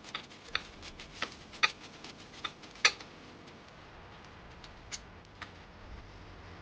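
Irregular sharp clicks and knocks, crowded together in the first three seconds and loudest about one and a half and about three seconds in, then only a few scattered ones.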